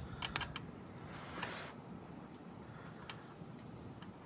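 A few sharp light metallic clicks, then a short scrape about a second in, followed by faint ticks, as a new spring-loaded motorcycle shift lever is handled and fitted onto the shift shaft.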